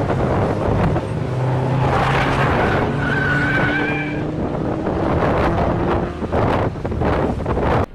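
Race cars' engines running through a corner, with a wavering tyre squeal for about a second, three seconds in, as a car slides wide off the track onto the grass.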